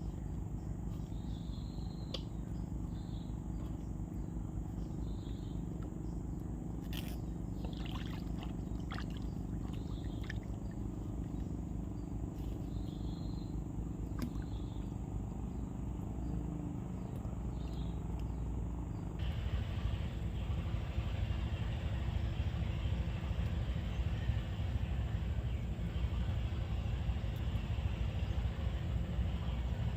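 Steady low motor hum with short high chirps over it. About two-thirds of the way through it switches abruptly to a louder, rushing motor noise.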